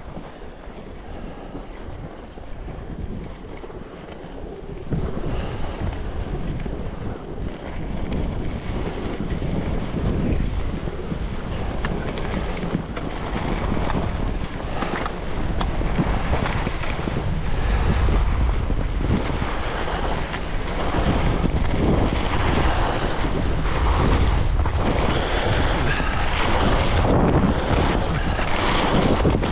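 Wind rushing over the camera microphone as a skier descends, with skis sliding and carving on snow. It steps up sharply about five seconds in and grows louder toward the end, surging and easing through the turns.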